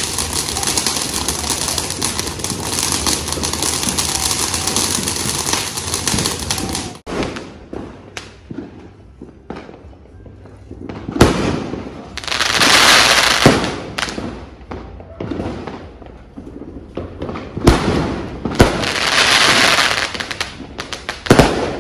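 A ground firework on the street crackles and sprays sparks without a break for about seven seconds, then stops abruptly. After that, aerial firework shells go off with sharp bangs, and two of them break into a long, loud crackling.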